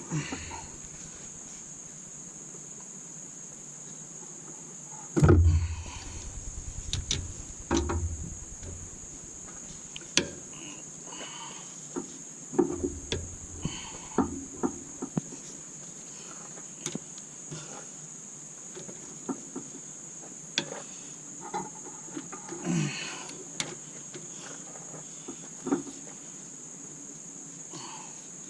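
Crickets chirping in a steady high trill, over scattered clicks, clinks and knocks of hand tools working on cylinder-head bolts, with a loud thump about five seconds in.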